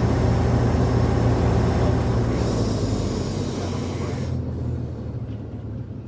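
Heavy diesel mining machine running loud with a deep steady hum, easing off and fading over the last two seconds.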